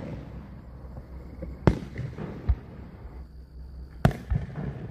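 Aerial firework shells bursting: sharp bangs about a second and a half in and again about four seconds in, with a duller thud between them and smaller pops following each bang.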